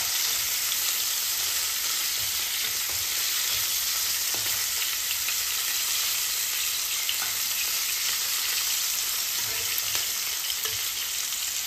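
Marinated fish pieces frying in hot mustard oil in a pan: a steady sizzle with a few faint crackles.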